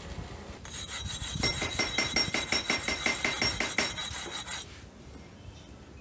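Firebrick being rubbed back and forth against a hard surface in quick, even rasping strokes, about five a second, for roughly four seconds before stopping. A thin high ringing note runs over the scraping.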